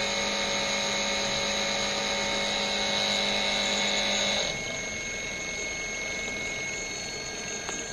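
DC motor of a Feedback DCM150F servo trainer running: a steady whine of several held tones over a hiss. About four and a half seconds in the sound steps down and the highest tone drops out.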